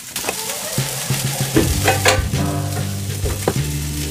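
Steaks searing in olive oil in a frying pan, a steady sizzle, with a few crinkles and clicks from a plastic salad container being handled.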